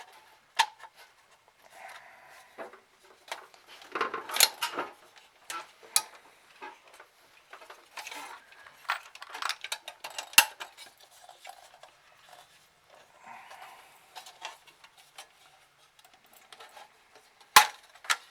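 Irregular clicks and metallic clinks from unscrewing and lifting off the sheet-metal top case of an Xbox 360 DVD drive, with small screws and a screwdriver knocking against metal. A few sharper knocks stand out among them.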